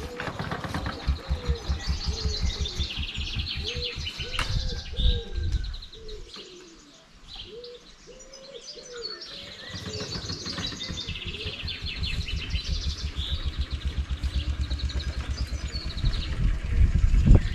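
Birds chirping and trilling over a low, evenly spaced pulsing that dies away for a couple of seconds midway: a motorcycle being pushed with the ignition off, its engine turned over by hand to get oil round it after more than a year standing.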